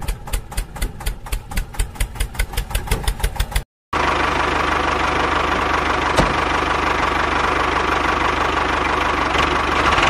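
A mini homemade toy tractor running: an even engine-like knocking at about six beats a second that stops abruptly after three and a half seconds. After a short gap, a steady whirring hum with a constant whine takes over, a small electric motor running the belt drive to the mini chaff cutter.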